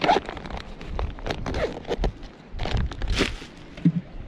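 Irregular rustling and crinkling with light knocks, from a soft tackle pouch and plastic bags being handled and packed into a plastic cooler.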